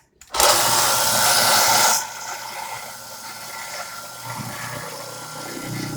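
A power tool cutting the metal workpiece for an airgun chamber: a loud hissing cut for about a second and a half, then the tool runs on more quietly and steadily.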